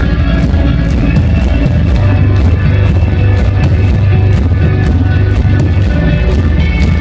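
Live rock band playing loud: guitars over heavy bass and a steady drum beat.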